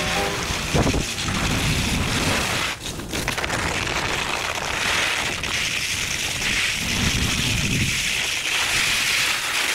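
Wind rushing over the camera microphone with the steady hiss and scrape of skis sliding over hard-packed snow.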